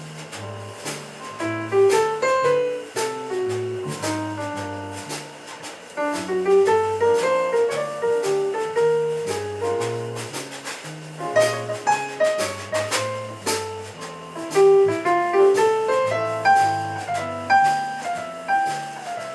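A small live band playing: an electric bass holding low notes under a keyboard playing quick melodic runs and chords, with a drum kit's cymbals keeping time.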